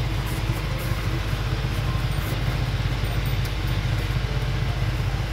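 A machine hum, low and steady, with an even hiss over it, like a motor running without a break.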